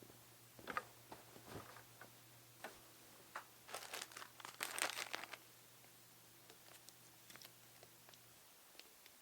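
Quiet crinkling and rustling of wrapping being handled, densest about four to five seconds in, among scattered light clicks and taps. A faint low hum runs underneath and stops near the end.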